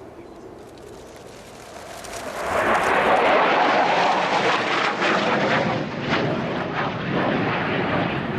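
Jet noise from an F-35B Lightning II's single Pratt & Whitney F135 turbofan, faint at first and then swelling sharply about two seconds in to a loud, steady rushing sound as the jet passes close.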